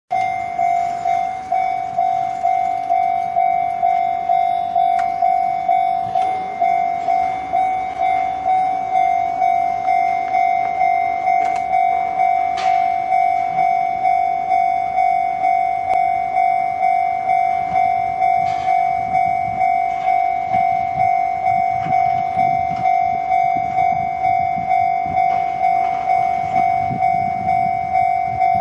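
Japanese level-crossing warning bell ringing steadily: an electronic two-tone ding, a little under two strikes a second, each strike fading quickly. A low rumble builds in the last few seconds.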